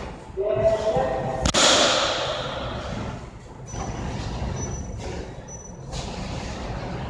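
A single sharp crack about a second and a half in, a bat striking a pitched ball in a batting cage, with a bright ringing wash that fades over a second or two. A steady low machinery hum runs underneath.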